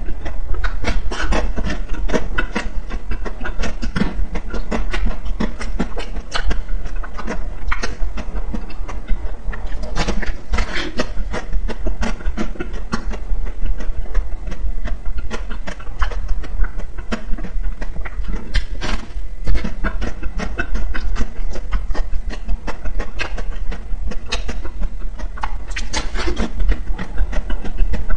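Close-miked eating sounds: biting and chewing a coated ice cream bar, with a dense run of crackles and wet mouth clicks and heavier bursts of crunching every few seconds.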